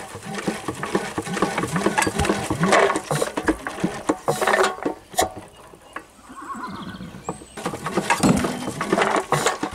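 Bamford SD3 single-cylinder diesel stationary engine being hand-cranked with its starting handle, turning over without firing: irregular clanks and puffs of air. The cranking goes quieter for a couple of seconds about halfway through, then picks up again.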